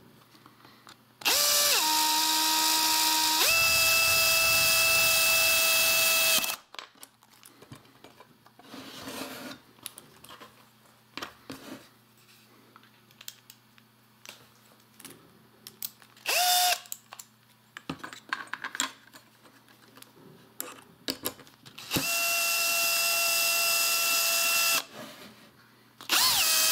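Power drill/driver running in bursts as it drives 4x30 wood screws into 3D-printed plastic brackets. The first run lasts about five seconds and steps up in pitch partway through. Then comes a brief blip, another run of about three seconds, and a short one at the end, with small handling clicks in between.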